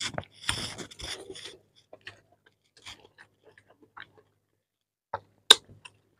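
Close-up eating sounds of a man eating rice and spicy chicken curry by hand: a louder breathy, wet burst in the first second and a half, then sparse soft chewing and lip clicks, with one sharp mouth click about five and a half seconds in.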